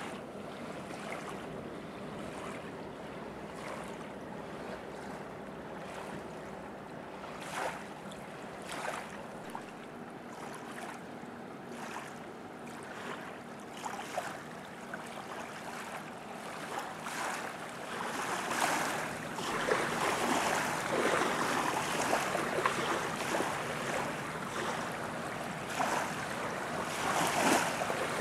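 Small waves lapping and splashing at the water's edge, with wind on the microphone; the lapping grows louder about two-thirds of the way in.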